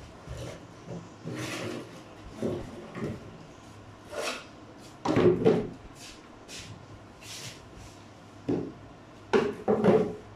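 Intermittent wooden knocks and clatter, as of wooden boards or boxes being handled off-camera, loudest about halfway through and again near the end.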